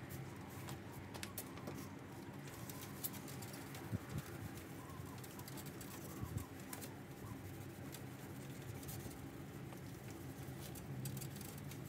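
Faint trigger spray bottle of glass cleaner and a cloth wiping a car's chrome grille surround: scattered small clicks and soft rubbing. Birds call in the background.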